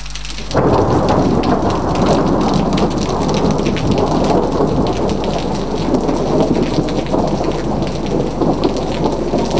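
Heavy rain of a pre-monsoon thunderstorm pouring down in a dense patter of drops. It starts abruptly about half a second in.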